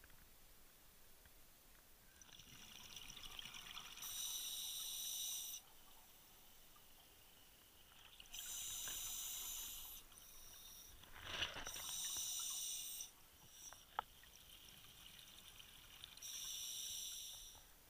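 Scuba regulator exhaust bubbles heard underwater: four bursts of bubbling hiss, about every four seconds, as a diver breathes out. A sharp knock sounds in the middle and a small click shortly after.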